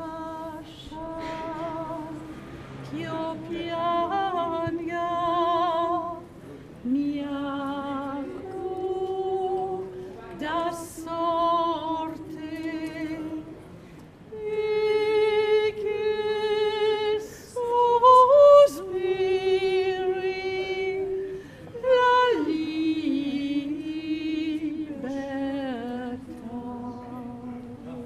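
A woman singing solo and unaccompanied, in phrases of long held notes with vibrato separated by short breaths.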